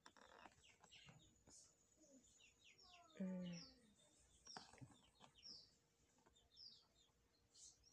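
Faint bird chirps outdoors, short high falling notes repeating through the quiet, with a brief low voice-like call about three seconds in and a few faint taps.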